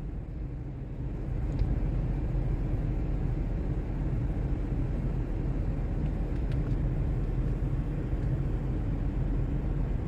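Steady low rumble of a parked car with its engine running, heard inside the cabin; it gets slightly louder about a second in and then holds level.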